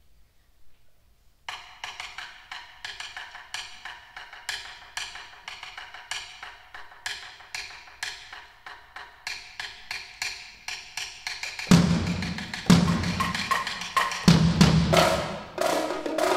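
Percussion ensemble opening a piece with a steady run of sharp wooden clicks, a few a second. About two-thirds of the way in, deep drum strokes come in and the playing gets much louder.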